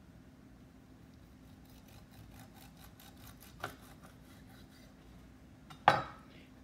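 Chef's knife sawing through a cooked beef tri-tip roast in a run of quick, faint strokes, with a light knock on the wooden cutting board partway through. Near the end the knife is set down on the board with a single loud clack.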